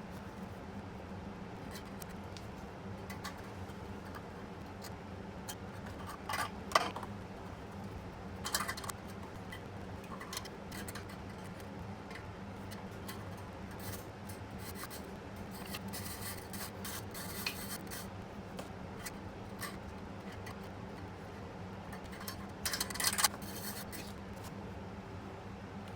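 Wire brush scraping at a motorcycle's exhaust pipe ends, cleaning them, in short separate bursts with a few sharper scrapes a quarter of the way in and near the end. A steady low hum runs underneath.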